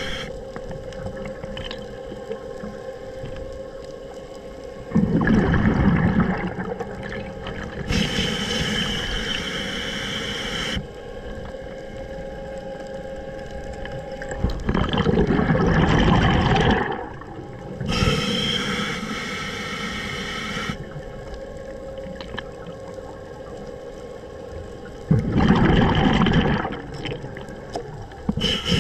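Scuba diver breathing underwater through a regulator: a hiss on each inhale, then a rumbling gush of exhaled bubbles, in a slow cycle with three exhales about ten seconds apart.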